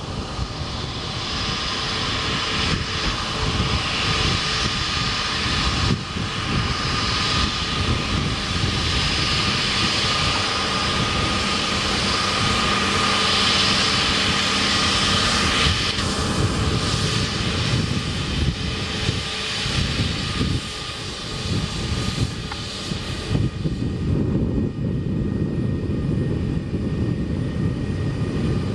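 Airbus A320neo's CFM LEAP-1A turbofans running at taxi power as the airliner rolls past and turns onto the runway: a steady jet whine over a rumble. Late on the high whine drops away and the lower rumble grows stronger.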